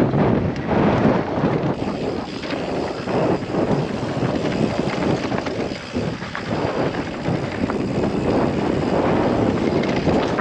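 Wind buffeting the microphone and tyres rolling over a dry dirt trail as a mountain bike descends, with many small knocks and rattles from the bike over the bumps.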